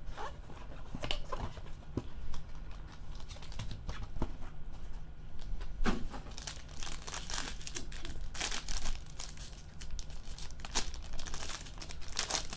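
Gloved hands crinkling and tearing open a foil trading-card pack wrapper: irregular crackles and rustles that grow busier about halfway through, over a low steady hum.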